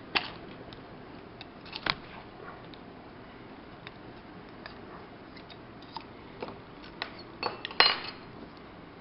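Scattered small metal clicks and clinks of lock parts and tools being handled as a lock cylinder is taken apart, its plug being pushed out with a follower; a pair of clicks about two seconds in and the loudest near the end.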